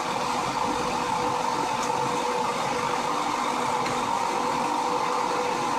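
Steady running noise of a car heard from inside the cabin: engine hum and road noise, with a constant faint whine.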